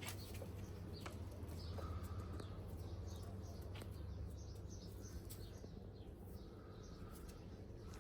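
Small birds chirping: many short, high chirps scattered throughout, over a steady low hum.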